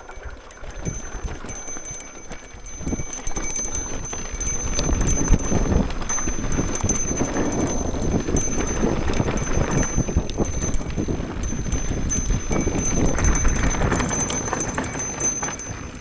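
Mountain bike riding down a rough trail: tyre and suspension rumble with chattering rattles from the bike, louder from about three seconds in, and a fast metallic ticking.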